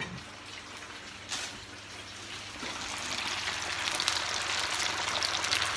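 Fish fillets frying in a pan of hot oil, sizzling and crackling, growing louder from about halfway through. The oil is still bubbling hard, the sign that the fish is not yet ready to be turned or taken out.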